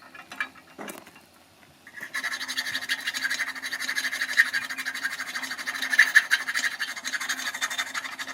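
Steady, rapid scratching and rasping on metal, starting about two seconds in after a few light knocks.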